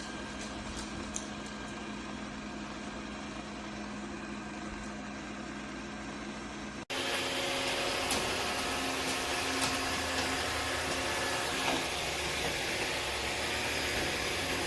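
iRobot Roomba robot vacuum running with a steady hum. About halfway through the sound drops out for an instant and comes back louder, with more hiss.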